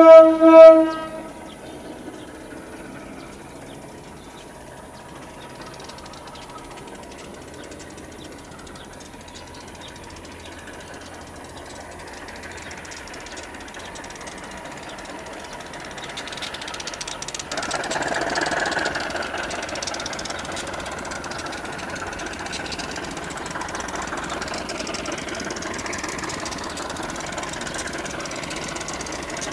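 Two short horn blasts from a CC 201 diesel-electric locomotive, then the locomotive's engine and its train of coal hopper wagons approaching, getting louder about halfway through and staying loud.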